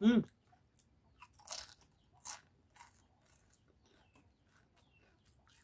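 Chitato Lite potato chip being bitten and chewed: several crisp crunches, starting about a second and a half in.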